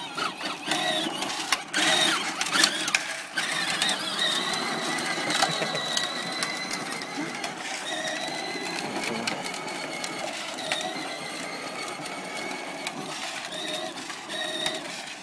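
Battery-powered toy ATV's electric motor whining steadily as it drives, its hard plastic wheels clicking and knocking over paving stones, most in the first few seconds.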